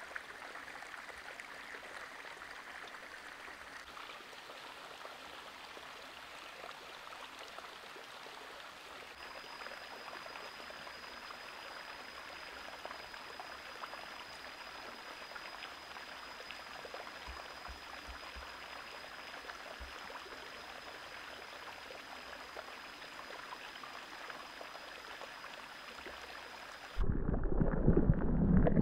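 Shallow rocky creek flowing with a steady, soft rush of water, with a thin, steady high tone joining about a third of the way in. Near the end it cuts abruptly to a much louder, muffled low rumble of water noise heard through a camera held underwater.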